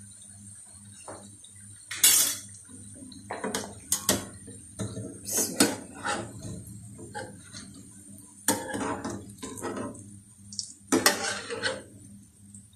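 A wire-mesh frying skimmer clinking and scraping against a steel frying pan at irregular intervals as fried pakoras are scooped out of the oil, over a faint steady sizzle of the hot oil.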